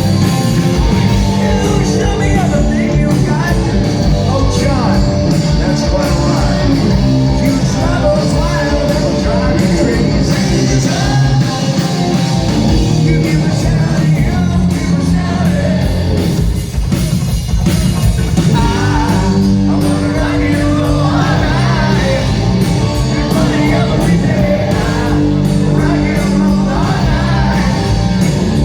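Live rock band playing loud amplified music, with drums and a singer.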